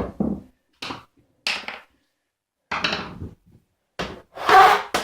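A series of sharp knocks and clatters, about seven in all, the loudest near the end: parts and tools of a lawnmower starter motor being handled and set down on a workbench.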